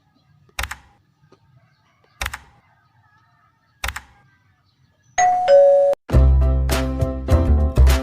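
Three sharp knocks about a second and a half apart, then a two-note falling ding-dong chime, then upbeat music with a steady beat starting about six seconds in.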